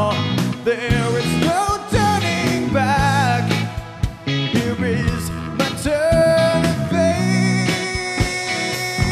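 Rock music in an instrumental passage: a wavering, bending lead line on electric guitar over bass and programmed drums.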